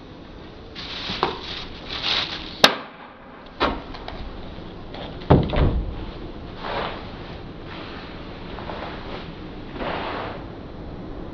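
Rustling and sharp plastic clicks and knocks as a litter grabber drops rubbish into a plastic wheelie bin, then the bin's lid thuds shut about five seconds in, followed by soft rustling.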